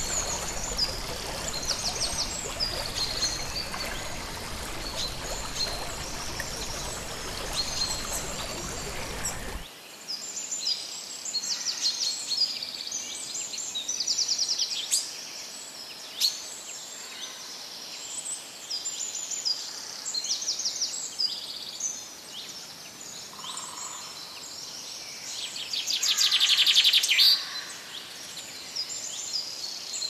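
Rushing water of a waterfall with many birds chirping over it. About ten seconds in, the water noise cuts off suddenly, leaving only the birds' chirps and trills, with one louder trill near the end.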